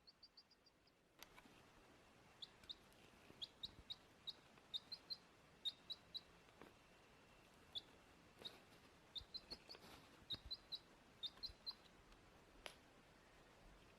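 Baby chick peeping: many short, high chirps, some single and some in quick runs of three or four.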